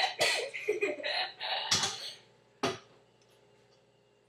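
A person's voice making coughing, laughing noises, broken by two sharp knocks, one a little under two seconds in and one about a second later.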